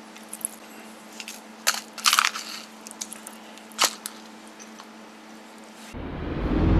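A few scattered crackling, crunching noises over a low steady hum, loudest around two seconds in. Near the end, electronic music comes in with a rising sweep.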